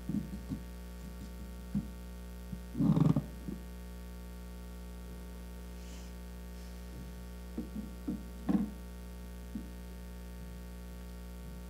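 Steady electrical mains hum on the room's sound system, with a few soft bumps and knocks. The loudest bump comes about three seconds in, and a small cluster follows near eight seconds.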